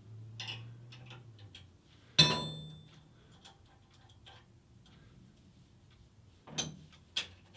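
Steel parts being handled at a machinist's vise: scattered light metallic clicks and taps, with one sharp clink about two seconds in that rings briefly.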